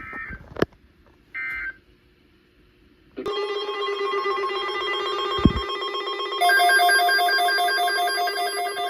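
The last two of three short EAS/SAME data bursts, the digital end-of-message code closing a weather alert, about a second and a half apart. About three seconds in, a loud ringing electronic alert tone starts: several steady pitches with a rapid trill. About halfway through, higher pulsing tones join it.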